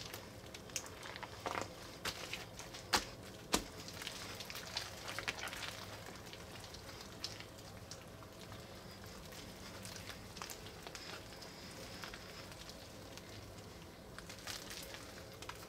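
Wet water slime full of Orbeez water beads being squeezed and pressed by hand, giving quick sticky squelching clicks and pops. Two louder pops come about three seconds in, then softer crackling as the slime is spread flat.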